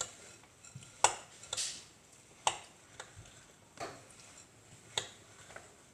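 A spoon stirring oats into thick no-bake cookie mixture in a pot, knocking against the pot with a sharp tap roughly once a second at an uneven pace.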